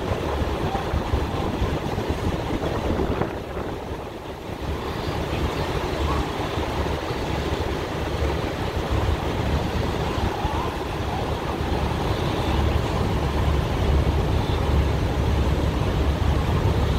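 Semi-truck cab fire burning with a steady rushing, rumbling noise, with wind buffeting the microphone; the noise drops briefly about four seconds in.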